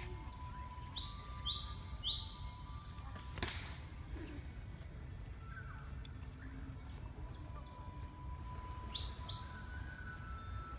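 Wild birds calling: short sweeping high notes in quick groups of three, near the start and again near the end, and a high descending trill a little before the middle. Under the calls run a low steady rumble and a faint thin steady tone, with one sharp click about three and a half seconds in.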